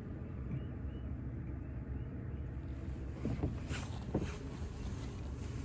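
A boat motor running with a steady low hum. A few brief knocks and rustles come about three to four seconds in.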